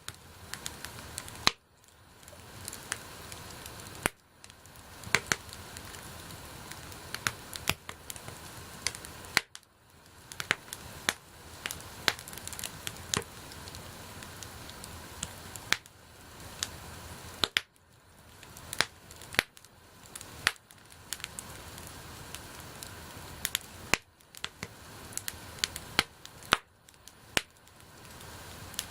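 Wood bonfire burning, with frequent irregular sharp pops and cracks over a steady hiss of flame.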